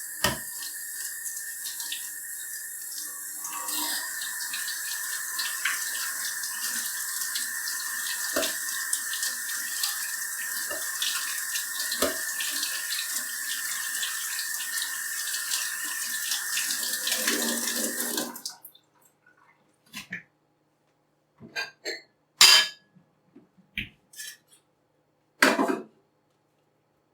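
Kitchen tap running cold water over strawberries in a strainer in the sink. The flow grows stronger about four seconds in and is shut off abruptly after about eighteen seconds. A few sharp knocks and clatters follow.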